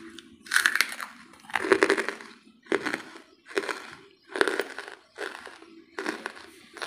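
Hard wood charcoal being chewed: about seven crisp crunches, roughly one a second, each a short burst of brittle cracking.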